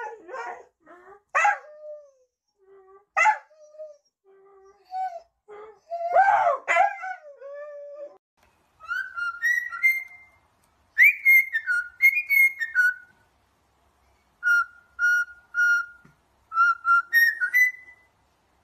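A Siberian husky howling in a run of long, bending calls. About halfway through, a cockatiel takes over, whistling a tune in clear notes: several short notes at one pitch, then rising ones.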